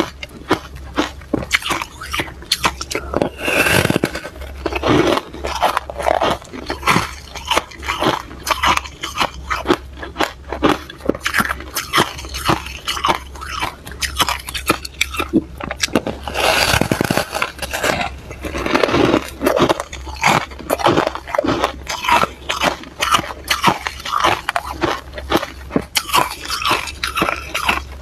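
Close-miked crunching of compacted freezer frost being bitten and chewed: a dense run of crisp crunches, several each second, with a few heavier crunching bites.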